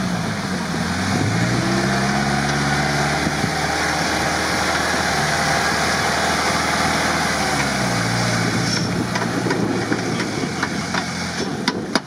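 Lifted UAZ off-roader's engine pulling under load in deep mud. The revs dip and climb, hold, then drop and rise again. From about three-quarters of the way through come sharp clicks and knocks, the loudest two near the end, which the crew take for the front left CV joint breaking.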